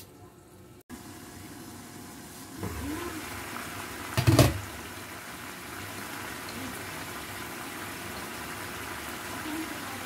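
Chicken simmering in a pan with a steady hiss while liquid is poured in from a bottle. There is one loud knock about four seconds in.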